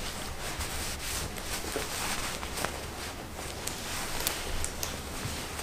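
Corduroy fabric rustling and rubbing as a skirt is buttoned up by hand, with a few small clicks.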